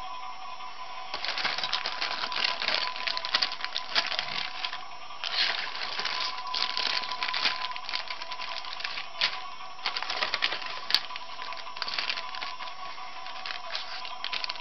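Thin plastic toy wrapper bags crinkling and crackling as hands handle them, in irregular bursts with short lulls, starting about a second in.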